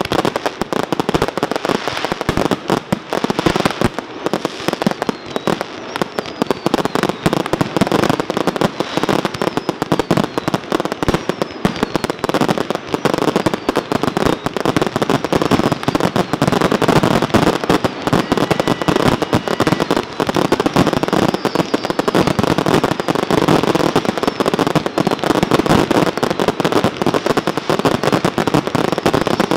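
Fireworks going off in a dense, unbroken barrage: many shells and ground effects firing at once, a continuous rapid string of bangs and crackles with no pauses.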